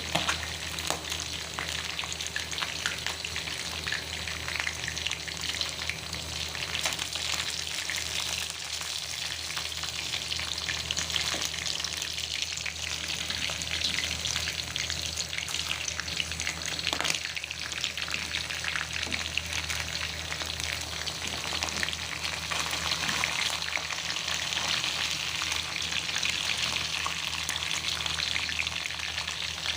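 Food sizzling steadily in hot oil in a pan while being stirred, with scattered clicks and scrapes of the stirring utensil against the pan and a steady low hum underneath.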